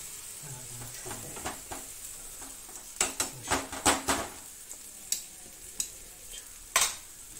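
Egg and vegetables sizzling steadily in a nonstick frying pan while a spatula scrapes and knocks against the pan: a quick cluster of knocks about three to four seconds in, a few single ones after, and a sharper knock near the end.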